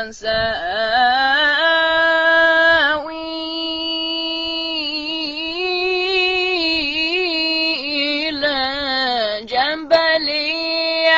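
A boy's voice reciting the Quran in the melodic tajweed style of the great reciters, drawing one phrase out into long, held, ornamented notes, with no added echo or effects. The voice dips in loudness about three seconds in and breaks briefly a little before the end.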